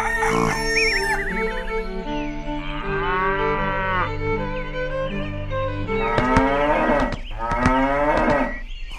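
Cow mooing, two long calls, one about three seconds in and one near the end, over background music of steady held notes.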